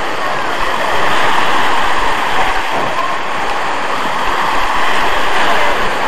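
Small waves breaking and washing up over a pebble beach: a steady rushing hiss of surf that swells slightly twice as waves come in.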